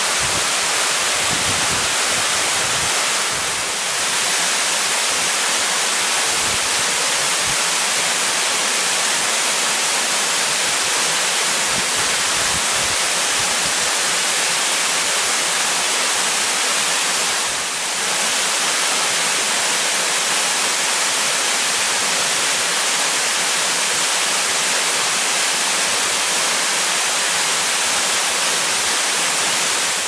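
Steady, full rushing of a tall, narrow waterfall pouring down a rock face, heard close from its foot, dipping briefly twice.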